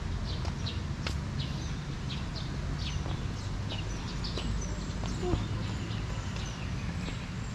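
Small birds chirping repeatedly in short, high notes, several a second, over a steady low rumble of outdoor background noise.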